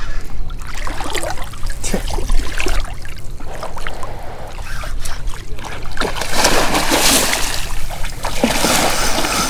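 Water sloshing and splashing, building about six seconds in to a loud, sustained splashing as a large hooked striped bass thrashes at the surface close to the angler.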